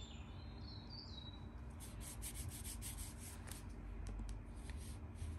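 Fingers rubbing and lightly ticking on a smartphone's plastic back and edges as it is handled, faint, over a low steady hum. A run of light ticks comes in the middle.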